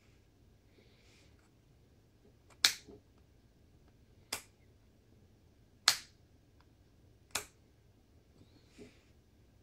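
Push button on the jig's control panel clicked four times, about one click every second and a half, the first and third the loudest.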